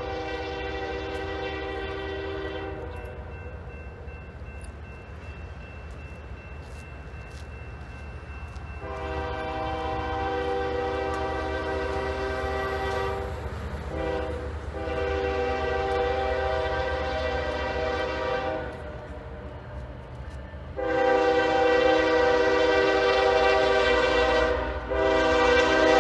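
Norfolk Southern freight locomotive's multi-chime air horn sounding a series of long blasts for a grade crossing as the train approaches, over a low steady engine rumble. One blast ends about three seconds in. After a pause come two long blasts with a short break between them, then a final long blast near the end that is the loudest.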